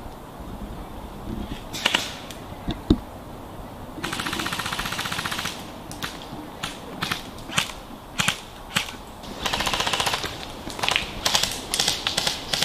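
Airsoft electric guns (AEGs) firing: a full-auto burst of about a second and a half about four seconds in, a shorter burst near ten seconds, and scattered sharp single cracks in between.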